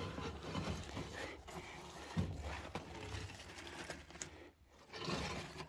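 Light clinks and scrapes of small metal scraps, nails and bits of hinge left from burnt wood, being gathered from the ash of a fireplace firebox with a magnet.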